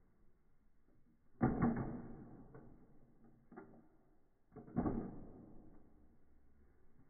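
Plastic toy trains knocking and clattering on their plastic track, played back in slow motion: two heavy, drawn-out knocks about three seconds apart, each fading slowly, with a few faint clicks between.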